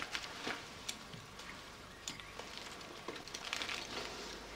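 Faint rustling and crinkling of paper surgical drapes being handled, with a few small scattered clicks of instruments.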